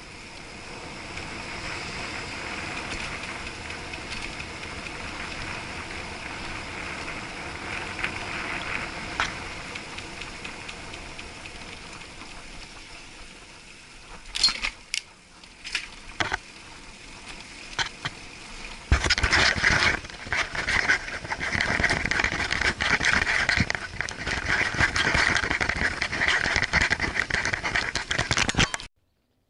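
Bicycle riding noise heard through an action camera's waterproof housing, muffled: a steady rush of wind and tyres, then a few sharp knocks. From about two-thirds of the way through, a loud continuous rattle and crackle as the bike and camera shake over rough paving, cutting off suddenly near the end.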